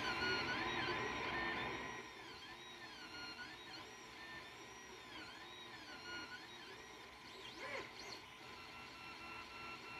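Ender 3 3D printer's stepper motors whining as the print head moves, the pitch sweeping up and down over and over in smooth arcs. Louder for the first two seconds, with a short chirp about eight seconds in.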